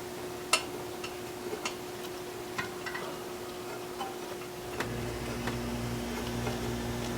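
Scattered light metallic clicks and taps from a flex plate bolt being started into its hole by hand, with one sharper click about half a second in. A low steady hum comes on about five seconds in.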